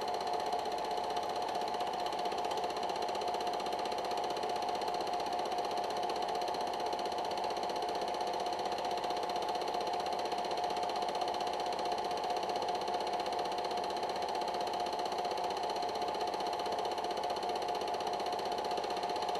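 A steady, unchanging mechanical whirring hum with a strong mid-pitched tone over an even noise.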